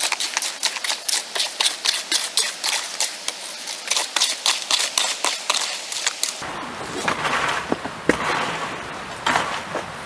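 Rapid gritty scraping and chopping of a hand tool working sand-cement mortar in a plastic tub, about three or four strokes a second. About six seconds in it gives way to scuffing and a few stone knocks as someone climbs over loose rocks.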